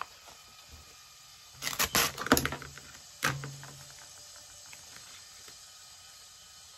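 Clear plastic and paper craft sheets crinkling and rustling as they are handled: a cluster of crackles about two seconds in and one more short crackle a little after three seconds.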